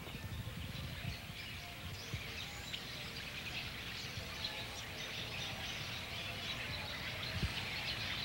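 Outdoor field ambience: a steady hiss with faint bird chirps, over a low rumble.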